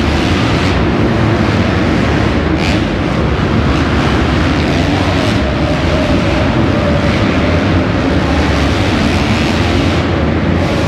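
Several motocross bikes racing round a dirt track in a large indoor arena, their engines running hard in a steady, continuous din with a rev that rises and falls partway through.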